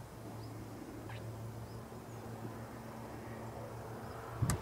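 Outdoor pasture ambience: a steady low insect-like buzz with faint high bird chirps. Near the end comes a sharp click, followed by low thumps.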